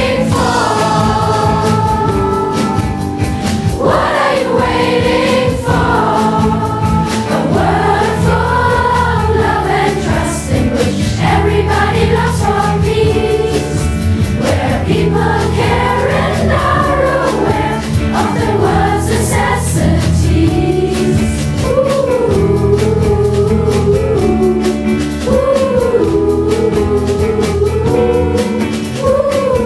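Pop song with a youth choir singing over band accompaniment, loud and continuous.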